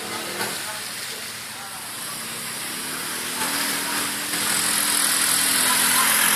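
ATV engine running, its note growing louder over the last few seconds along with a rising hiss.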